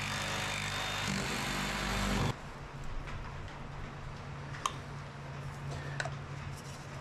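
A power drill's motor running steadily, cutting off abruptly about two seconds in. Then a low steady hum with a few light metallic clicks as the lid comes off a can of ABS pipe cement.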